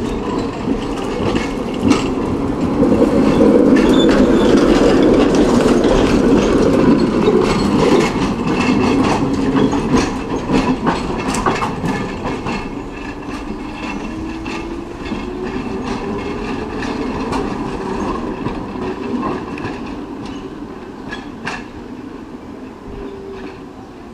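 Single-deck electric tram running along the rails past the camera and drawing away, its wheels clicking on the track. It is loudest a few seconds in, then fades steadily, with a faint wavering whine in the second half.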